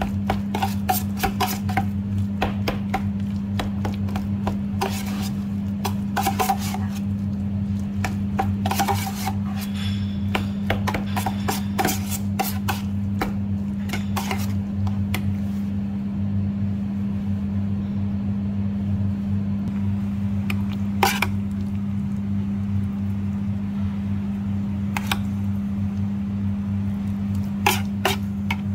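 A metal utensil scrapes and clinks against a stainless steel pan as guacamole is mashed and stirred. The scraping is frequent for the first half and only occasional after that, over a steady low hum.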